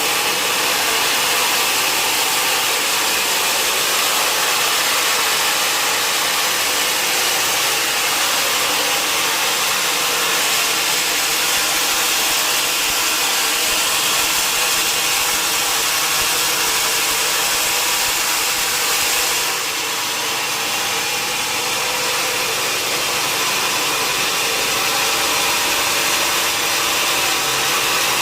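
Sawmill saw cutting through a mahogany log, a loud steady machine noise that drops a little about two-thirds of the way through and then comes back.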